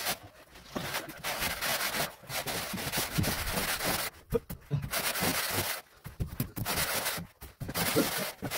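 Straightedge dragged across a damp sand-and-cement floor screed to level it: a gritty scraping and rubbing in strokes of a second or two, with short pauses between them.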